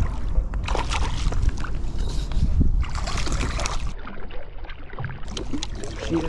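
Water splashing and sloshing as a hooked trout is fought and brought in by hand, over a steady low rumble.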